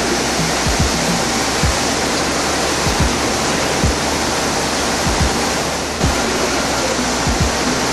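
Leadwell LTC-35CLV CNC turning centre at work: an even, loud rushing noise, with a short low thud about once a second.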